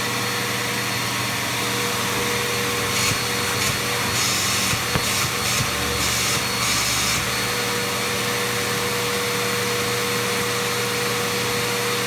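Vacuum cleaner running steadily, its hose nozzle worked over a couch cushion. Between about three and seven seconds in, the hiss comes in several short, louder spurts.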